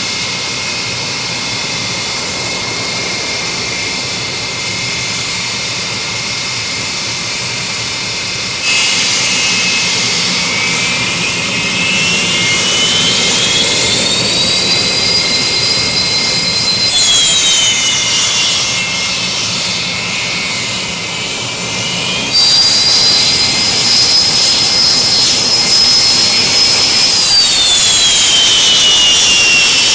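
Aermacchi MB-339 jet trainers taxiing, their Rolls-Royce Viper turbojets giving a loud, high whine over a steady rumble. The whine rises in pitch, drops, and jumps up again several times, then glides down near the end.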